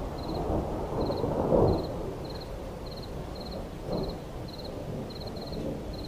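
Low rumbling outdoor noise that swells about a second and a half in and briefly again around four seconds, with a faint high chirp repeating about twice a second.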